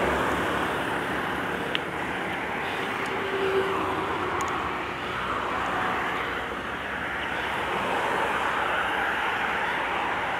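Steady rushing noise of wind on the microphone and road traffic, heard from a bicycle climbing beside a highway.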